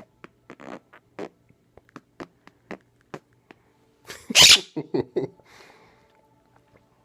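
A raspberry noise, a loud spluttering blast about four seconds in followed by a couple of shorter ones. Before it, soft clicks tick about twice a second over faint steady tones.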